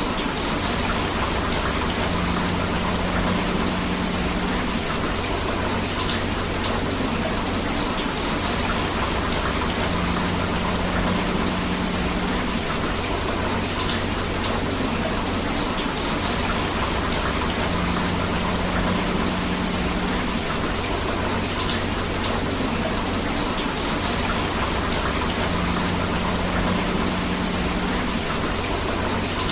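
Steady rain together with rushing river water, an even, continuous wash of sound. A faint low tone comes and goes about every eight seconds.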